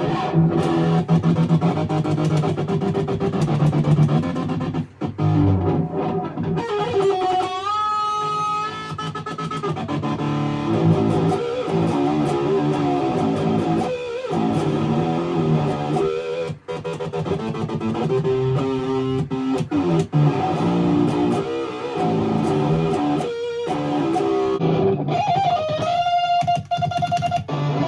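Jackson seven-string electric guitar played through an amp, with a kill switch cutting the sound in and out: a held, bent-up note chopped into a rapid stutter about eight seconds in and again near the end, and a few single short cuts in between.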